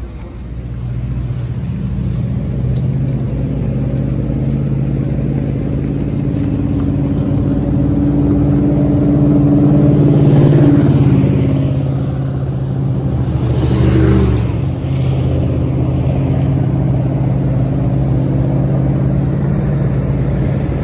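Vehicle engines running steadily on a dirt track, with a vehicle passing close and getting louder about ten seconds in and again near fourteen seconds.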